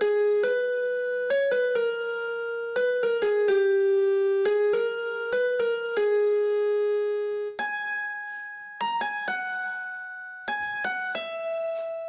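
Background music: a keyboard plays a slow melody of single notes, each struck sharply and then fading.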